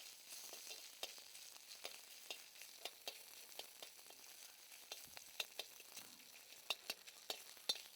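Faint sizzle of hot oil in a kadai, with scattered crackles and clicks, as a tempering of mustard seeds, cumin, curry leaves, asafoetida and ginger paste is stirred.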